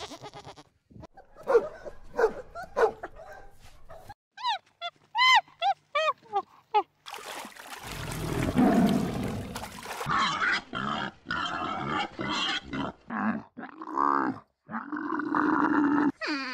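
Several different animal calls one after another: the tail of a goat's bleat, a run of short high arched calls, then a tiger's noisy growl lasting about three seconds, followed by many short calls from another animal.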